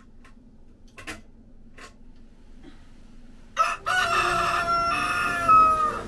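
A rooster crowing once, a cock-a-doodle-doo of about two seconds starting about three and a half seconds in and trailing off on a falling note, used as a morning wake-up sound effect. Two faint clicks come earlier, about a second in.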